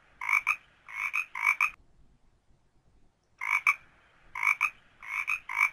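Frog croaking: three quick double-pulsed croaks, a pause of about a second and a half, then four more.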